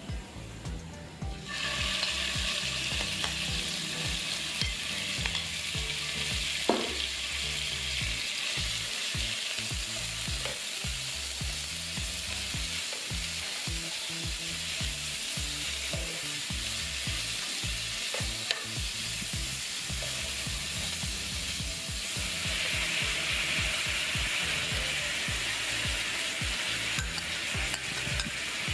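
Marinated beef cubes sizzling in hot oil with minced garlic in a nonstick frying pan, stirred with a spatula, with a few light clicks of the spatula on the pan. The sizzle jumps up sharply about a second and a half in as the beef goes into the oil, and grows stronger again about three-quarters of the way through as the sauce goes in.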